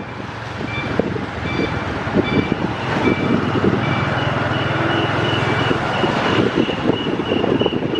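Street traffic: a motor vehicle's engine runs with a steady hum through the middle and stops shortly after six seconds in. Over it comes a series of short high electronic beeps, slow at first and faster in the second half, like a vehicle's reversing or warning beeper.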